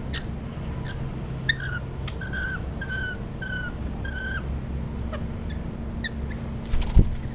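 Rainbow lorikeet giving a run of short, even-pitched calls, about two a second, then a single thump near the end.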